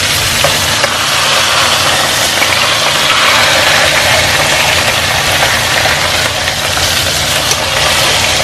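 Bone-in ribeye steaks sizzling steadily in hot grease in a pan as they are turned with a fork, the water cooked out and the meat frying in its fat. A low steady hum runs beneath.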